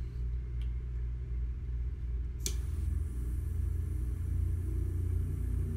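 A butane torch lighter clicks alight about two and a half seconds in, and its jet flame then burns with a low rumble as a cigar is lit, over a steady low room hum.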